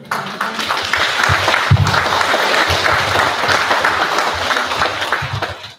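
Audience applauding, a dense steady patter of many hands that starts at once and stops abruptly near the end.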